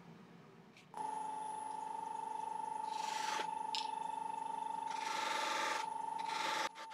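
Wood lathe starting up about a second in and running with a steady motor whine, spinning a buffing wheel. The turned ash peppermill body is pressed against the spinning wheel, giving a rubbing hiss in two passes, a brief one midway and a longer one near the end; the sound then drops sharply.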